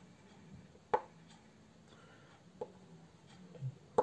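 A white oil pastel stick being pressed onto paper: three sharp light taps, about a second in, past halfway and at the very end, over a faint low hum.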